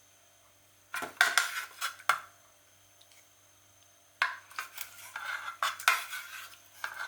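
A utensil scraping and clinking against an aluminium mess tin, in two bouts of quick strokes about a second in and again from about four seconds in.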